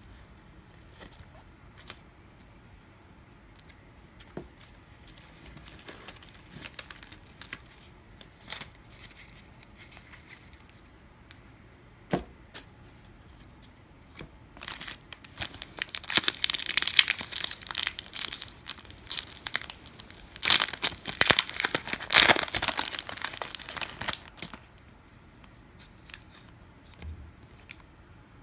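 A pack of 1999 UD Choice baseball cards being torn open, its wrapper crinkling loudly in bursts for about ten seconds starting around halfway through. Before that there are faint soft clicks of cards being handled.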